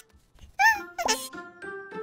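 Cartoon background music with two short, high yips from a small puppy, about half a second and a second in.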